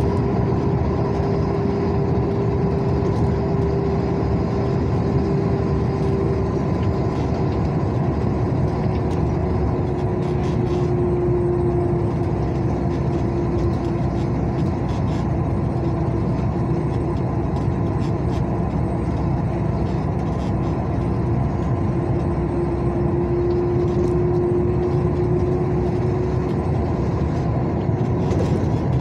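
Steady engine and road noise of a vehicle being driven, with a constant engine hum that sags slightly in pitch in the middle and rises back near the end.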